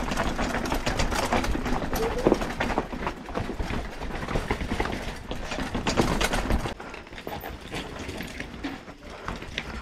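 Mountain bike being ridden over a rough trail: a dense, irregular clicking and rattling over a low rumble, easing and getting quieter about seven seconds in.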